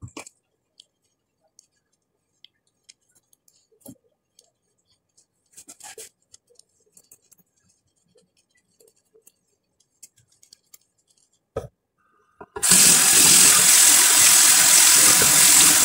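Near silence with a few faint soft sounds, then a tap comes on about three-quarters of the way in: water running loudly from a faucet and splashing over hands as a face is rinsed.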